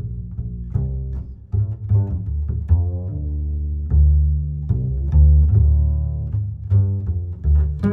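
Music carried by a deep string-like bass line of short plucked and held low notes, changing every half second or so.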